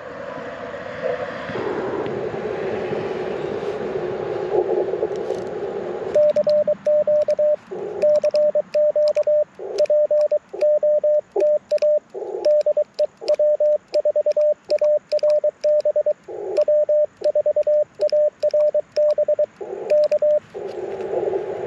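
Icom IC-705 receiver hiss, heard through a narrow CW filter. About six seconds in, Morse code starts: a single steady tone keyed on and off in dits and dahs. In the longer gaps the band hiss briefly comes back, as break-in keying switches the radio to receive. The hiss returns alone near the end.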